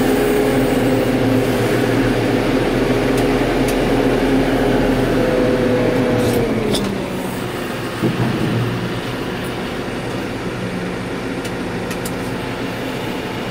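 Case Farmall 115U tractor's four-cylinder diesel engine running at raised revs, heard from inside the cab; the revs fall back to a lower, steady running about six and a half seconds in. A single knock comes about eight seconds in.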